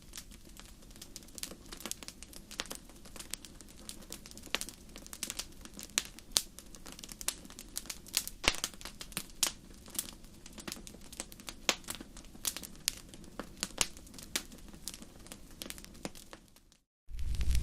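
Wood fire crackling: irregular sharp pops and snaps over a soft low hiss. Near the end it cuts out for a moment, and a much louder steady rushing noise begins.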